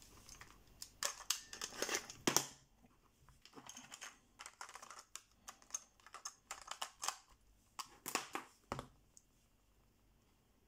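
Sharp plastic clicks and rattles of an Aiwa HS-F07 cassette Walkman being handled, its cassette door opened and shut. The clicks stop about nine seconds in.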